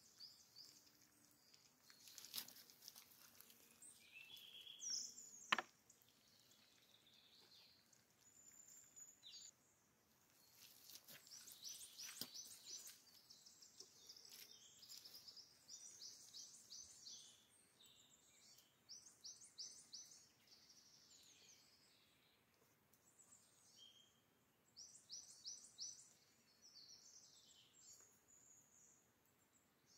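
Faint bird song: short, high chirping phrases repeated again and again. A few small clicks and knocks from dishes and utensils being handled, with one sharp click about five and a half seconds in as the loudest sound.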